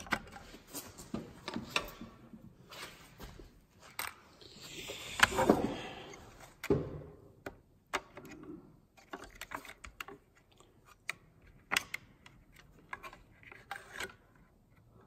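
Clicks, knocks and rustling from the saw's trigger switch, its wires and the plastic housing being handled as the switch is worked loose and lifted out. The loudest part is a longer rustle and scrape about five seconds in.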